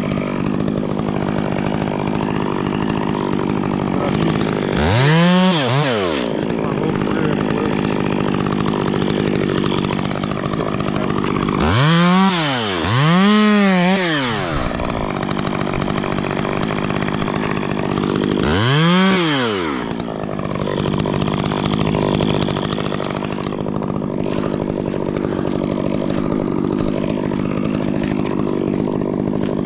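Stihl two-stroke chainsaw idling steadily, blipped on the throttle four times: each a quick rev up and straight back down to idle, around 5 s, twice between 12 and 14 s, and about 19 s in.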